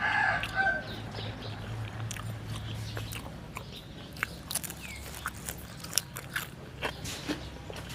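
A rooster's crow trails off in the first second, then a person chews and bites food with scattered sharp mouth clicks.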